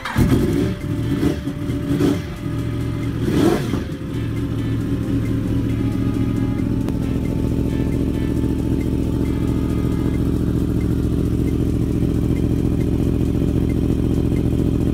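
Yamaha YZF-R1 crossplane inline-four on an Akrapovič exhaust, revved in three short blips over the first four seconds, then idling steadily.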